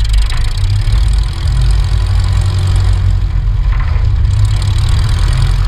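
Van's RV-7 light aircraft rolling along a grass runway: the engine running and the main wheel rumbling over the grass make a loud, steady low rumble, picked up close to the landing gear.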